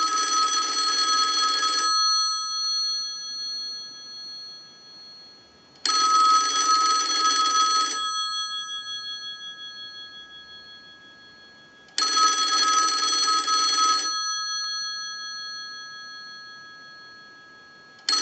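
Single-slot payphone's bell ringer ringing on a ring cycle sent by a test analyzer, as for an incoming call: three rings of about two seconds each, six seconds apart, each fading out after it stops, with a fourth starting at the end. The ringer is working.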